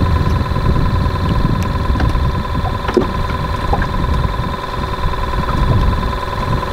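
Boat motor running steadily with a constant whine, over an uneven low rumble.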